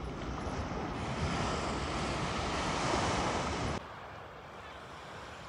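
Wind buffeting the phone's microphone over a steady rush of North Sea surf. About four seconds in, the sound cuts abruptly to a quieter, steady rush of surf.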